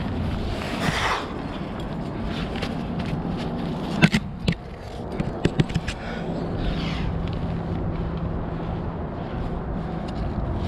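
A rock climber's movement on the rock: jacket fabric scraping and rustling, with a cluster of sharp metallic clicks and knocks from climbing gear (carabiners, quickdraws) near the middle. A steady low rumble sits underneath throughout.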